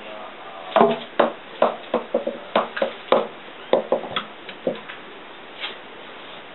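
A small ball bouncing and knocking against wooden stair treads and risers as a cat bats at it: about a dozen sharp, irregularly spaced knocks over some four seconds, then one faint knock near the end.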